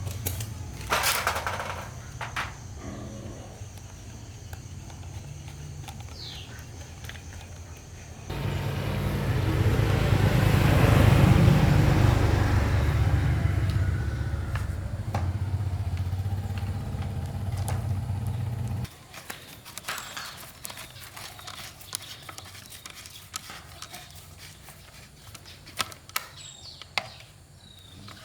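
Small petrol engine running, louder and rougher from about 8 seconds in, then cutting off abruptly near 19 seconds. Scattered light clicks and knocks follow.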